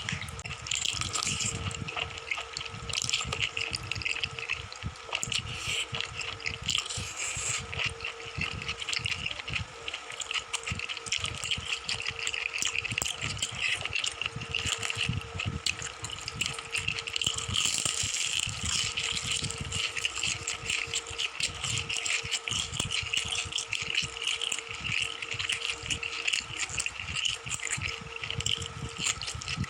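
Close-miked eating sounds: a dense, continuous crackle of chewing and crunching, with a faint steady hum underneath.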